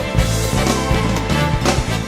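Background music with a steady beat, an upbeat band arrangement.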